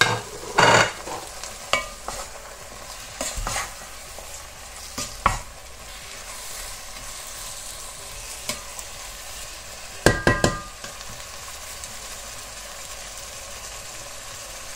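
Onions, tomatoes and spices sizzling in a hot coated pot while a wooden spatula stirs them, with a few sharp scrapes and knocks of the spatula against the pot, a cluster of them about ten seconds in.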